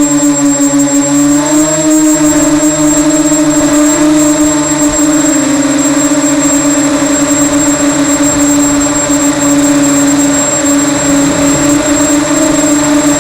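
Multirotor FPV drone's electric motors and propellers whirring at a steady pitch that rises slightly about a second and a half in and dips around five seconds in, with a thin high whine above it.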